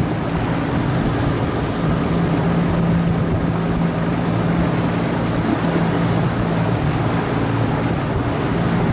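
Outboard motor running at a steady speed with a constant low hum, with water and wind noise around it.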